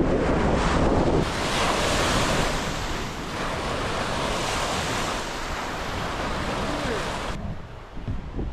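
Wind blowing across the microphone, with heavy low buffeting for about the first second, then a steady rushing hiss that drops away suddenly near the end.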